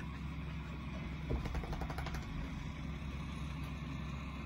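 Tractor engine running steadily, a low drone, with a short run of rapid rattling clicks about a second and a half in.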